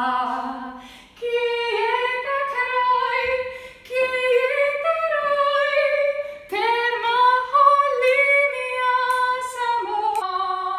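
A woman singing unaccompanied, holding long notes in several phrases with short breaks for breath between them.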